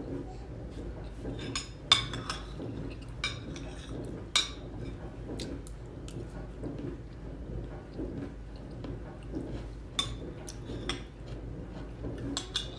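Eating crispy battered fried shrimp with a fork: scattered sharp clicks and clinks of cutlery against dishes, the sharpest about two seconds in, over a low steady hum.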